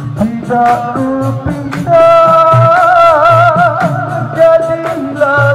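A man singing into a microphone over live dikir barat accompaniment of drums and percussion, holding a long note with a wavering vibrato about two seconds in.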